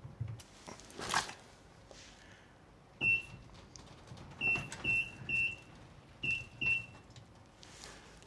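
Six short high-pitched electronic beeps, each starting with a click, like buttons being pressed on a control panel: one, then a quick run of three, then two close together.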